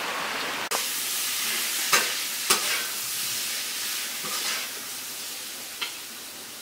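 Running water outdoors, then, from under a second in, the steady hiss of a wood-fired kitchen stove at work, broken by a few sharp crackles.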